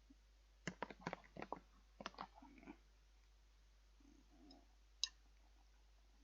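A few quick, light clicks and taps in two short clusters, about one and two seconds in, then a single sharper click near five seconds, against near silence.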